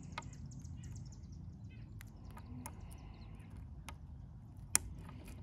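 Faint bird chirps over a low steady background, with scattered small ticks as the glued fishing-rod pieces are handled and pushed together, and one sharp click near the end.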